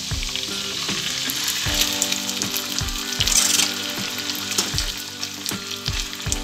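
Boiled taro greens (kochu shak) sizzling and crackling in hot mustard oil in a wok as they go in and are stirred with a spatula. The sizzle swells briefly about three seconds in.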